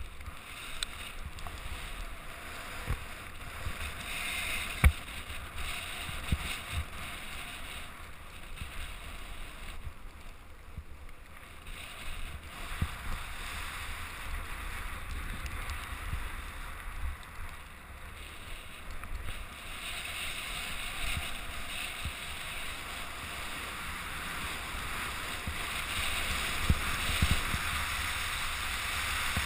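Wind buffeting the camera microphone over the hiss of sliding fast downhill on packed snow, with a few sharp knocks as the rider goes over bumps, the loudest about five seconds in.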